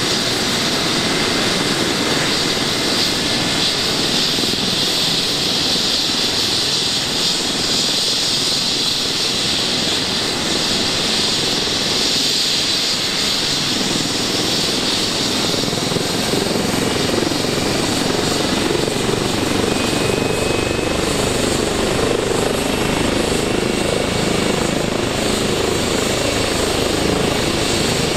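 Twin-turbine ADAC rescue helicopter running on the ground with its rotor turning before take-off: a steady high turbine whine over the rotor's sound. The lower rotor sound grows stronger about halfway through.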